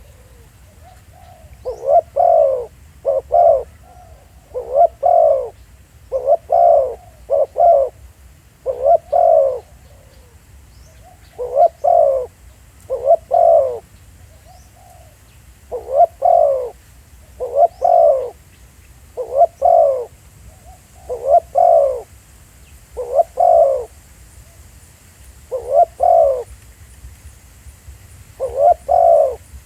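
Spotted doves cooing over and over, each phrase a quick group of two or three low coo notes, repeated about every two seconds.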